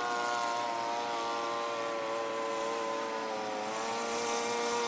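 Radio-controlled model airplane flying overhead, its engine and propeller making a steady drone. The pitch sags a little about three seconds in and then climbs again, and the sound grows louder near the end as the plane comes closer.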